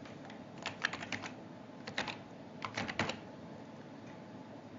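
Computer keyboard typing a word: about a dozen sharp keystrokes in three quick bursts, the first about two-thirds of a second in and the last about three seconds in.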